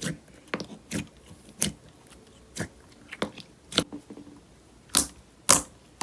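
Slime being squeezed and pressed by hand, giving irregular sharp popping clicks, about ten over a few seconds.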